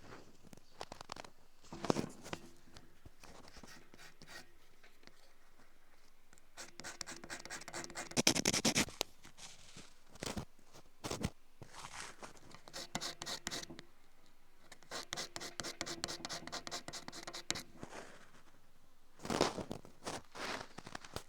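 Close-up scratching and scraping in runs of rapid strokes separated by short pauses, loudest about eight seconds in, with two sharp clicks a little after ten seconds.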